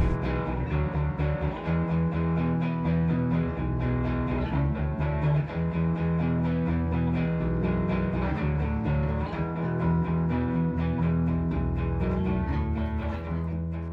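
Background music: electric guitar and bass over a steady beat.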